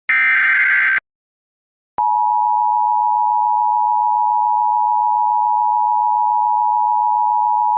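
Emergency Alert System broadcast: the last one-second burst of the SAME digital header's data tones, a second of silence, then the steady two-tone EAS attention signal (853 and 960 Hz together) starting about two seconds in and holding.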